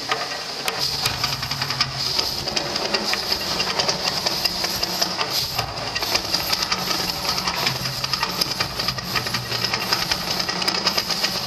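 Hiss and crackle of the Mirage volcano attraction's gas-fed fire effects, with a steady low hum underneath.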